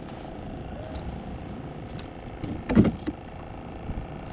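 Steady wind and water noise around a fishing kayak, with a short clatter of knocks about three seconds in from handling gear and the caught fish aboard.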